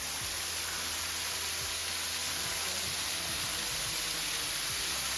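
Waterfall's falling water making a steady, even hiss.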